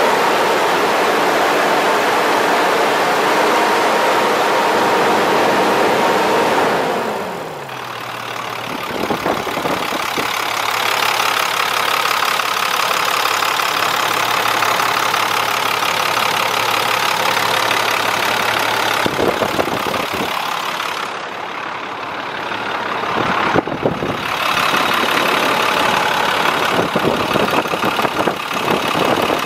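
2005 International 4400 truck's diesel engine idling. About seven seconds in its pitch falls as it drops to a lower idle, then it runs steadily.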